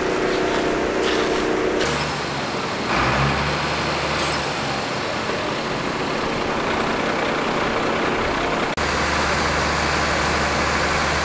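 Fire engines running steadily at a fire scene, a continuous engine and pump hum whose pitch and tone change abruptly about two, three and nine seconds in.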